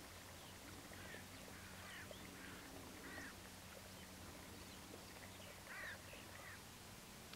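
Faint, short bird calls: about six scattered notes, two of them close together near the end, over a low steady hum.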